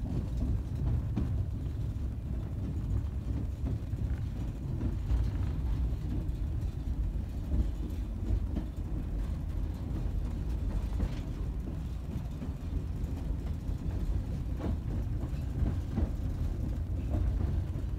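Reproduction of Lincoln's funeral railroad car rolling along the track, with the steady low rumble of the car's wheels and running gear and a few faint clicks and knocks.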